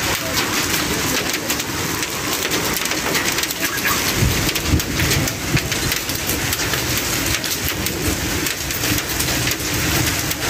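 Heavy rain mixed with hail pelting pavement and parked cars: a dense, steady patter of countless small impacts. A low rumble comes in about four seconds in.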